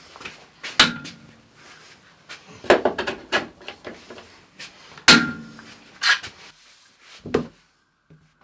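Sharp knocks and clunks of hard objects being handled and set down on a workbench: five loud strikes spread out, with quieter rattles and scrapes between.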